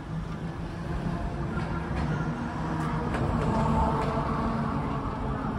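Road traffic passing close by: car engines and tyres rumble, swelling to a peak about four seconds in and then easing slightly.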